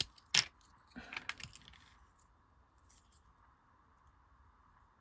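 Plastic LEGO pieces being handled: two sharp clicks, then a short clatter of clicking bricks about a second in.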